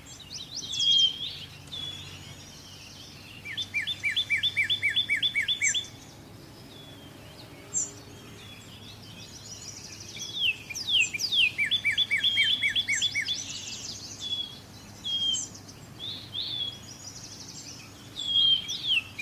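Songbird singing repeated phrases, each a few quick down-slurred whistles followed by a fast, even trill, with pauses of several seconds between phrases. A faint steady low background hum runs underneath.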